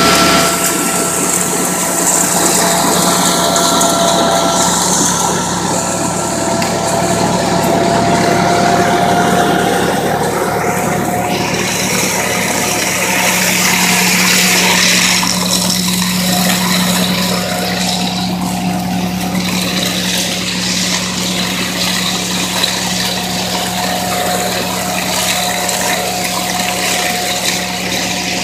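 HASATSAN H 2200 hazelnut harvesting machine running steadily, a constant whine over a rushing mechanical noise.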